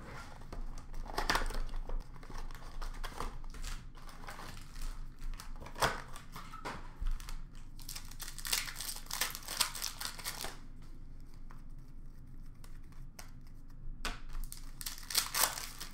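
Foil trading-card pack wrappers being torn open and crinkled, with cards being handled, in bursts about a second in, around six seconds, from about eight to ten seconds and near the end, with a quieter stretch of light clicks between.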